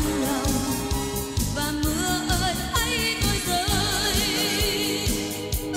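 A woman singing a pop ballad into a microphone over band backing with a steady beat, the held notes wavering with vibrato.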